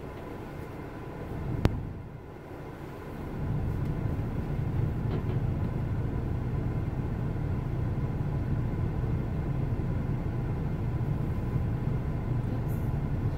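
Steady low rumble of a car heard from inside its cabin while it sits in traffic, with one sharp click about one and a half seconds in. The rumble grows louder about three and a half seconds in.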